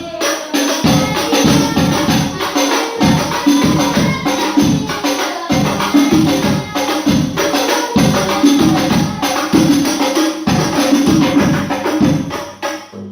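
Rebana frame drums with jingling percussion playing a quick, steady sholawat rhythm of deep hand-struck beats. The playing breaks off near the end.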